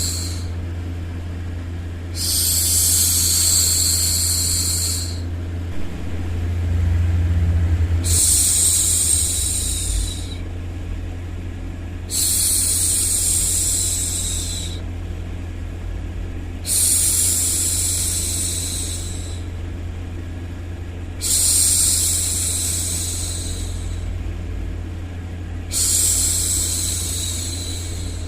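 A woman's voice shushing ('shhh') to hush a baby: six long hissing shushes of about three seconds each, one every four to five seconds, over a steady low white-noise hum.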